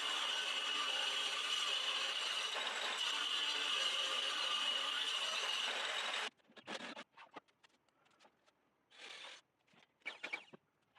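A steady mechanical whir with a faint high tone cuts off suddenly about six seconds in. Light clicks and two short scraping bursts of handling follow.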